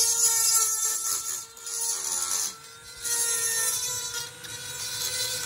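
Corded high-speed rotary tool grinding rust off a metal tailgate frame: the motor's steady high whine runs throughout, with a scratchy grinding hiss in several passes that eases off briefly about a third and halfway through.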